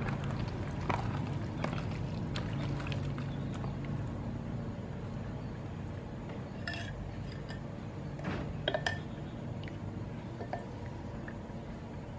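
Wet pieces of catfish being handled in a plastic tub and dipped into batter in a glass bowl, with a few sharp clinks of a spoon against the glass about eight and a half seconds in, over a steady low hum.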